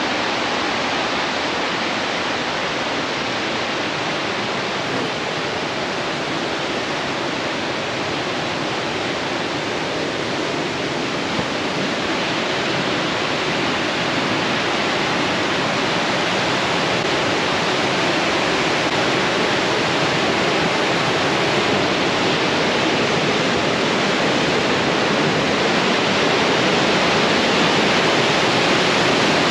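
Mountain river rapids and waterfall close by: a loud, steady rushing of whitewater over rock, loud enough to drown out speech, growing a little louder toward the end.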